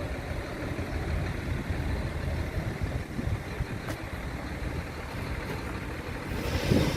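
Low, steady rumble of a nearby truck engine with wind gusting on the microphone, a single sharp click about four seconds in, and a louder rustle near the end.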